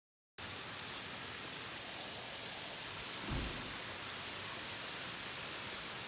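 Steady rain falling, with storm runoff streaming down a metal rain chain from the gutter; the rain starts abruptly after a short silence. A brief low thump comes about three seconds in.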